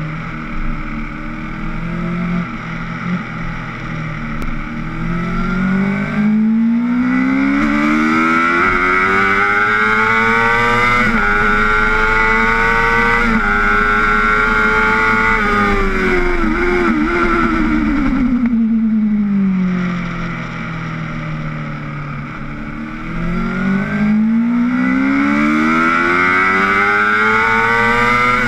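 Honda sport bike engine heard from on board at speed, rising in pitch as it pulls hard with a brief break at a gear change, holding high revs, then dropping away as the bike slows, and pulling up through the revs again near the end with another quick shift. Wind rushes over the bike throughout.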